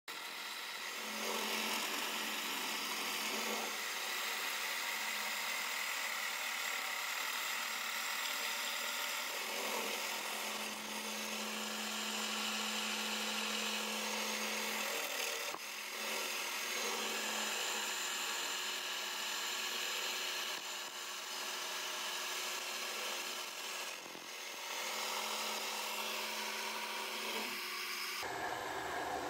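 Homemade drill press running, its bit cutting into metal as the lever feeds it down: a steady cutting hiss with a low motor hum that comes and goes.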